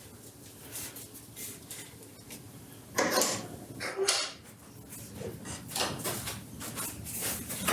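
Scattered knocks, clunks and sliding scrapes of wooden workpieces and a jig being handled and set in place on a workbench, with two louder clunks about three and four seconds in.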